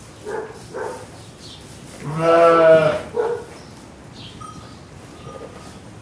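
Crowd ambience of people moving about, with short calls. About two seconds in comes one long, loud animal bleat, the loudest sound. Faint high steady tones follow in the second half.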